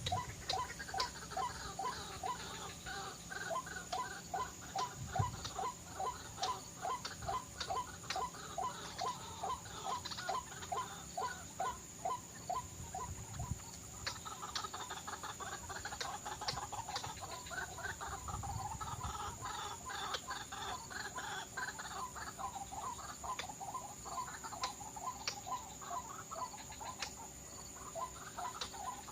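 White-breasted waterhen (ruak-ruak) calling, a run of repeated croaking notes about two a second that becomes a denser jumble of calls about halfway through.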